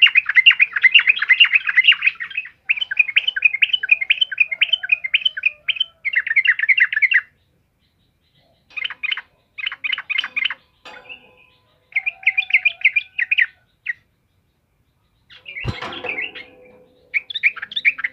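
Yellow-vented bulbul singing in full song: fast runs of sharp chirping notes, continuous for the first seven seconds, then in shorter bursts with pauses. A single sharp thump comes about fifteen and a half seconds in.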